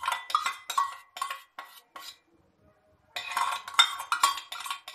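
Metal spoon scraping and clinking against a stainless steel bowl while scooping thick cream out of it, in quick strokes with a short pause near the middle, then a denser run of scraping.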